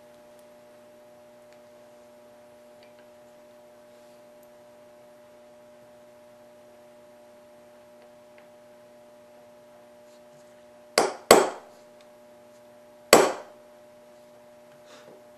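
Small hammer tapping a steel pin into an aluminum pistol trigger on a plastic bench block, driving in the trigger bar pivot pin to hold the trigger bar in place. Three sharp taps: two quick ones close together, then a third about two seconds later, over a faint steady hum.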